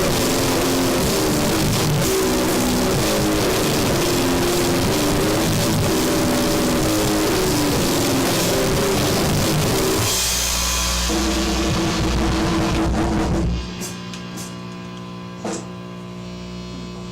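Noisy hardcore band playing at full volume: drums, cymbals and distorted guitar. About ten seconds in the song ends on a held, droning chord that cuts off suddenly a few seconds later, leaving a steady amplifier hum with a few clicks.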